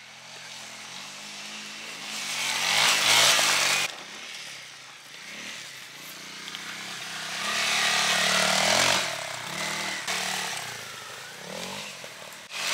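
Honda CRF250L dirt bike's single-cylinder four-stroke engine revving up and down as it rides the track, swelling loud as it passes near about three seconds in and again around eight to nine seconds, and cutting off suddenly just before the four-second mark.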